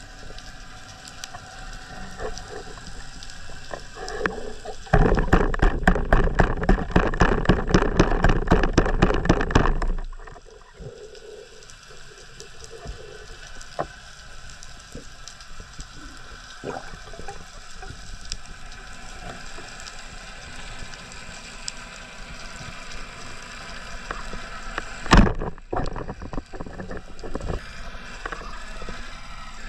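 Underwater sound picked up through a camera housing: a dull steady background with a stretch of loud, rapid crackling from about five to ten seconds in, and a single sharp knock near the end.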